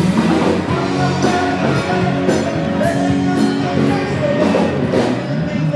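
Rock music with electric guitar and a singing voice, playing steadily.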